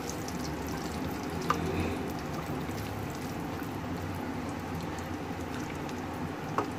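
Whole spices (dried red chillies, black cardamom and cinnamon) sizzling steadily in hot oil in a wok on low heat, with a couple of sharp ticks.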